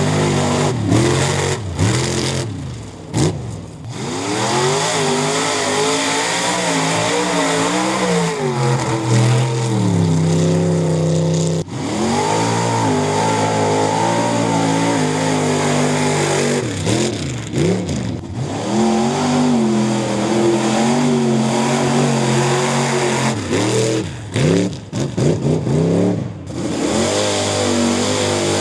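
Pickup truck engines revving hard through mud-pit runs, their pitch rising and dropping again and again as the drivers work the throttle. The sound breaks off abruptly about twelve seconds in and picks up again on another run.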